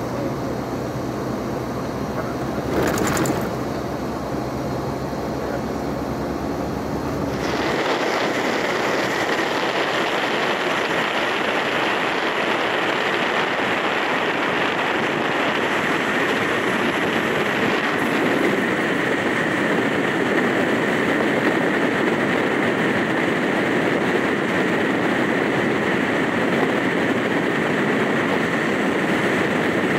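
Steady running noise of a moving bus: a low engine hum, a short sharp noise about three seconds in, then an abrupt change about eight seconds in to a steadier, brighter hiss of road and wind noise with a faint steady whine.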